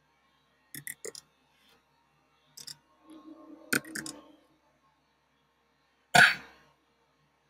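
A few short clicks of computer input, a brief low throat sound a little past three seconds in, then a single cough about six seconds in, the loudest sound here.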